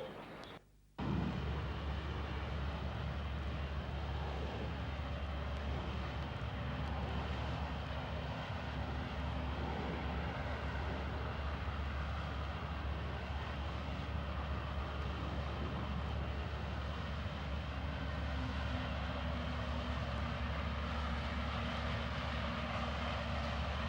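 Heavy motor running steadily: a loud, even low drone with a faint hum on top, cutting in about a second in after a brief silence.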